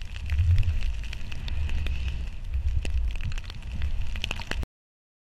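Skis hissing through deep powder snow, with low wind rumble on the action camera's microphone and scattered crackling ticks. The sound cuts off abruptly near the end.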